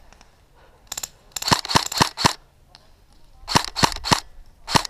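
Airsoft gun firing a string of single shots in quick groups, about four a second: one shot, then four, then three, then one more near the end.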